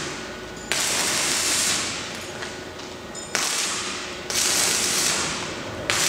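Electric arc welding: short welds on the door frame, each a crackling hiss that starts suddenly and dies away within about a second, four times.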